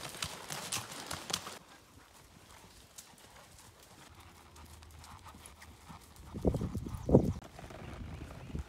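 Horse's shod hooves clip-clopping at a walk on a rocky, gravelly trail, with sharp strikes in the first second and a half, then softer footfalls. Near the end a few loud dull thumps are the loudest sound.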